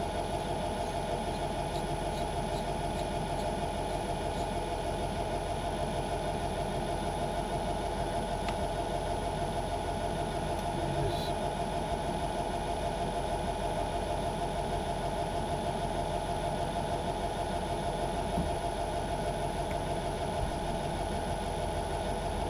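Myford lathe running steadily with an even motor-and-gear hum while boring out a metal part.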